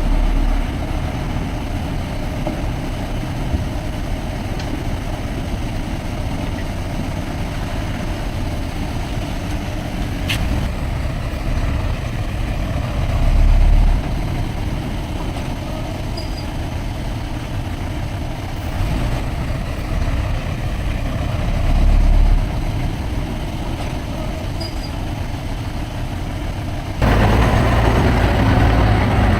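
Heavy diesel engine of earthmoving machinery running steadily, with two brief deep surges in the middle and an abrupt step up to a louder, fuller engine sound near the end.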